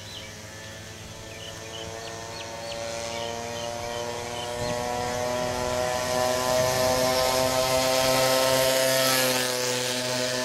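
Aircraft flying low overhead: an engine drone of several steady tones that grows louder over several seconds, then drops in pitch as it passes about nine seconds in. Birds chirp in the first few seconds.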